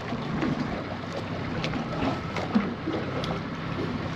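Boat outboard motor running steadily at trolling speed, under wind on the microphone and water washing against the hull, with a few faint clicks.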